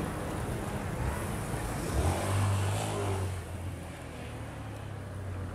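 A motor scooter's small engine running on the road nearby, over a steady low rumble.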